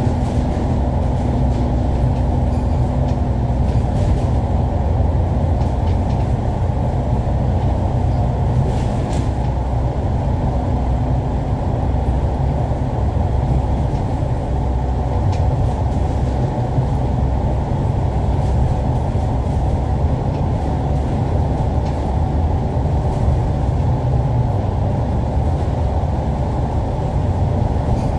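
Steady low rumble of a vehicle driving at speed through a road tunnel, heard from inside the cabin: engine and tyre noise, even throughout.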